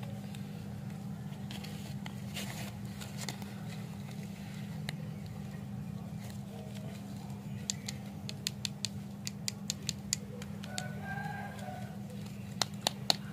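Lollipop wrappers being handled and peeled open: crinkling of paper and plastic wrapper, with a quick run of sharp crackles about two-thirds of the way through and a few more near the end, over a steady low hum.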